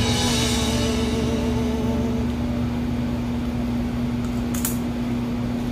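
A steady low hum with one constant tone, as the last of a piece of music fades out in the first couple of seconds; a short hiss comes about four and a half seconds in.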